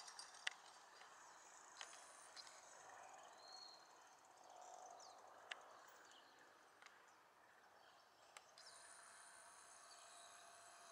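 Faint outdoor ambience: birds chirping now and then, and insects trilling high and steady from about two-thirds of the way in. A few sharp faint clicks stand out.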